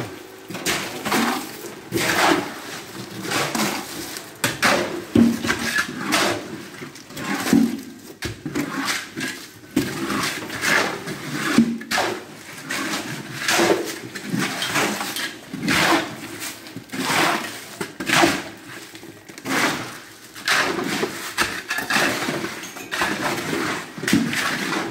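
Steel shovels scraping and scooping through wet concrete mix on a floor slab, in repeated strokes about one a second.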